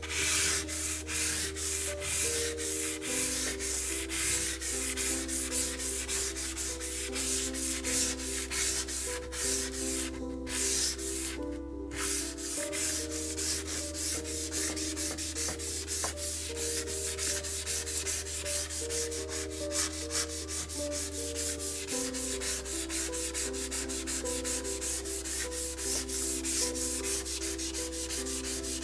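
150-grit sandpaper on a wooden block rubbed in rapid back-and-forth strokes along the rusty steel blade of an old Warranted Superior handsaw, scratching off rust and grime.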